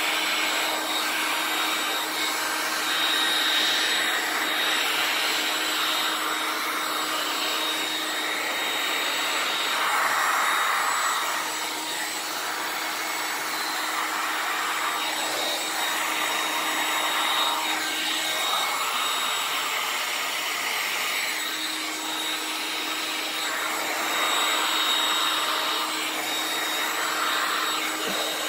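Electric heat gun blowing hot air over wet epoxy resin to smooth the white layer. It runs steadily with a faint hum, and its rushing sound swells and eases every few seconds.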